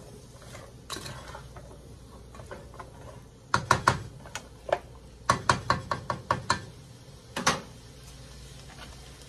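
A spatula stirring diced carrots, celery and onion in a sauté pan, clacking against the pan in quick clusters of sharp knocks, with one more knock a couple of seconds later.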